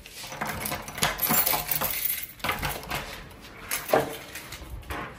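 Quick metallic clinks, rattles and knocks from things being handled while a wardrobe door is pulled open, with a sharp clink about four seconds in.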